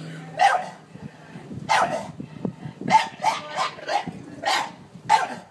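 Staffordshire bull terrier barking about eight times, with a quick run of four barks about three seconds in. It is wary barking at a garden plant pot that the dog is scared of.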